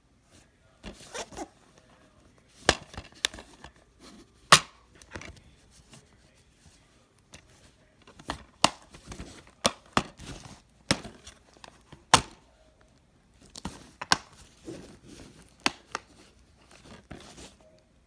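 Handling noise: a string of irregular sharp clicks with crinkling and rustling between them, in two clusters.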